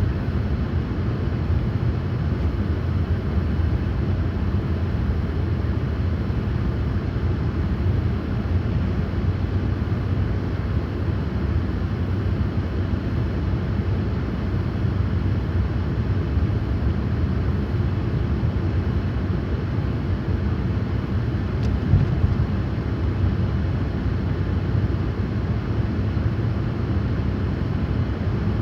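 Steady rumble of a car driving slowly on a snow-covered road, heard from inside the cabin: engine and tyre noise with no speech. One brief faint knock about three-quarters of the way through.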